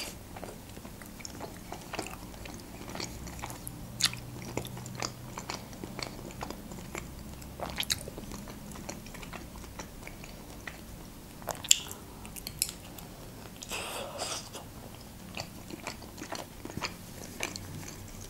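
Close-miked chewing of Georgian khinkali dumplings: soft, wet mouth clicks at uneven intervals, the loudest about twelve seconds in.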